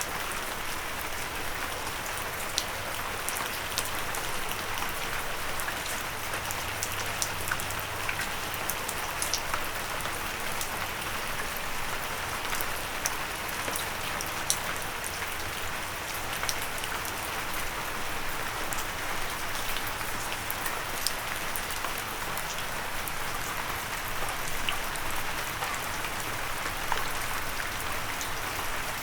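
Steady rain falling and pattering on a windowsill, with a dense hiss and many separate drops ticking sharply against it.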